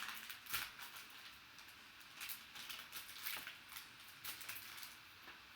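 Faint rustling and a scatter of light clicks from hands handling trading cards and their plastic holders and packaging.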